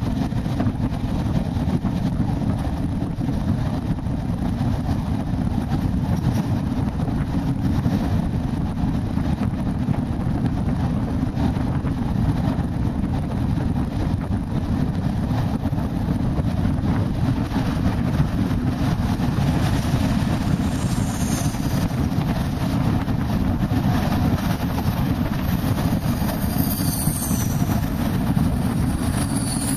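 Passenger train running at speed, heard at an open carriage window: a steady rumble of wheels on the rails with rushing air. Thin high squeals come in during the last third, as the train runs alongside a line of freight tank wagons.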